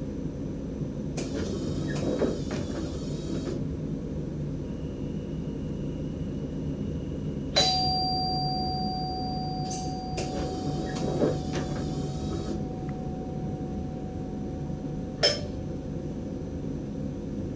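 Cab of a double-decker electric train running, with a steady low rumble. A chime sounds twice, a few seconds apart. Midway a click sets off a steady electronic tone that holds for about seven seconds and ends with another click.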